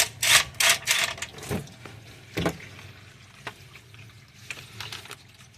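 Engine oil running out of the truck's open oil-pan drain hole, splashing loudly in the first second or so and then settling to a quieter steady pour. There is a single knock about two and a half seconds in.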